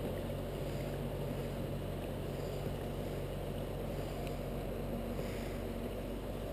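Small boat's motor running steadily, a constant low hum over a low rushing rumble as the boat cruises through floodwater.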